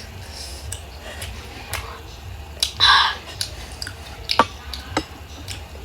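Close-up eating sounds of a person chewing a mouthful of Chinese sausage and rice: scattered sharp mouth clicks and smacks, with one louder, longer burst about three seconds in, over a low steady hum.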